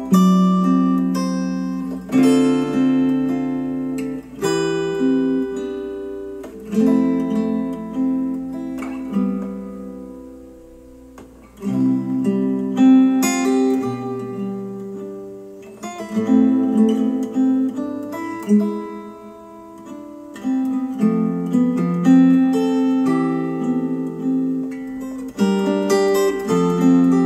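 Acoustic guitar music, plucked and strummed, played back through hi-fi bookshelf speakers. The passage restarts about twelve seconds in, as playback switches from Polk Audio Reserve R200 to KEF Q150 speakers.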